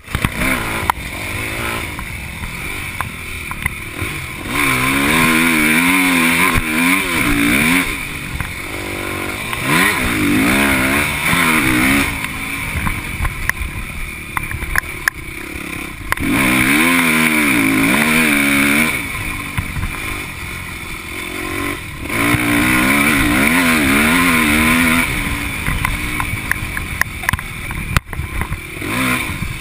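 Yamaha motocross dirt bike engine under hard riding: several loud stretches of full throttle, a few seconds each, with the engine note rising and falling, between quieter stretches at lower revs.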